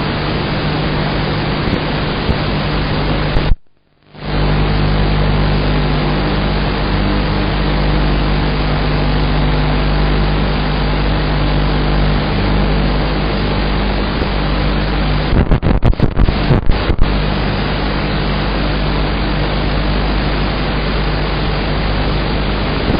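Steady static hiss with a low fixed hum, typical of the audio track of an analog FPV video recording. It cuts out completely for about half a second around four seconds in, and crackles and breaks up briefly around sixteen seconds in.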